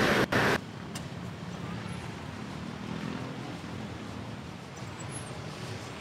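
Steady street traffic: the engines of cars and motorcycles running and passing on a busy road. It follows a short louder sound that cuts off abruptly about half a second in.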